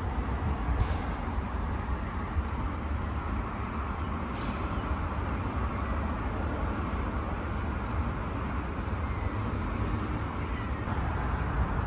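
Steady low rumble under an even hiss of outdoor ambient noise, unchanging throughout.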